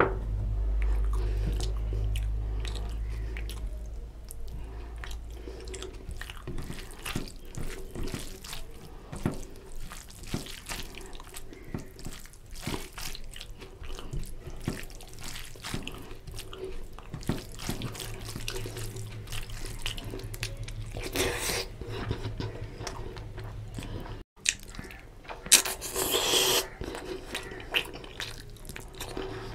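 Close-miked wet eating sounds: a hand squishing and mixing rice with chicken and egg curry, and chewing and mouth smacks, making a steady stream of small sticky clicks. There is a brief dropout about three-quarters of the way through.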